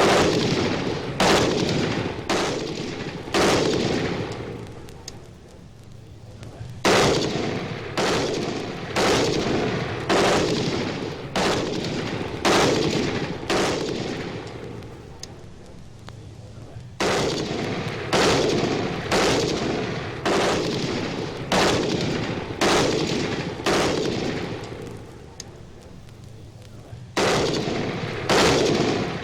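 A run of loud, sharp bangs, about one a second, each with a ringing tail that dies away, pausing for a couple of seconds twice before starting up again.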